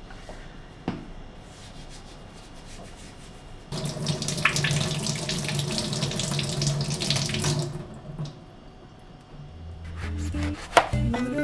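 Kitchen tap running for about four seconds while hands rinse an orange under it in the sink. Near the end comes a sharp knock as a knife cuts into the orange on a cutting board, and guitar music comes in.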